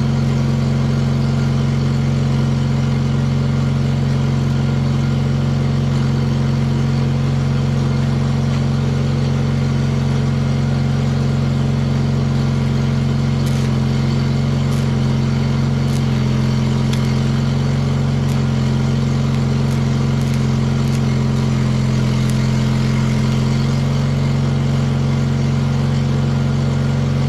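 Onan engine of an old Miller engine-driven generator welder running at a steady speed, with a few faint ticks partway through.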